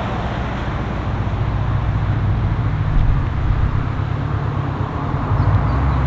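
Subaru WRX driving along a wet road toward the camera: a steady low engine rumble with tyre noise.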